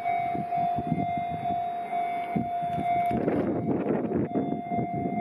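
Railway level-crossing warning bell ringing with a steady repeating tone, over an uneven low rumble that grows louder about three seconds in.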